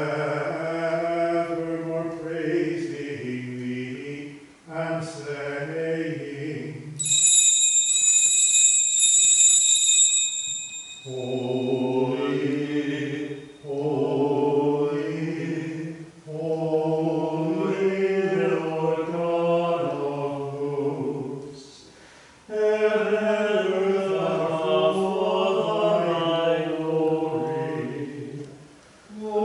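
A man's voice chanting the liturgy in sung phrases with pauses between them. About seven seconds in, a cluster of small bells rings for about three seconds while the voice falls silent.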